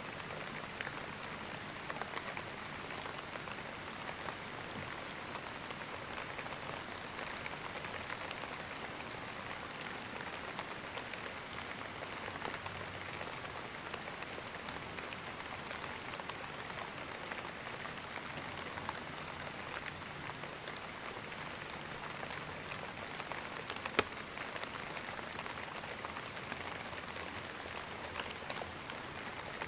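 Steady rainfall, an even patter of drops. There is one sharp click late on.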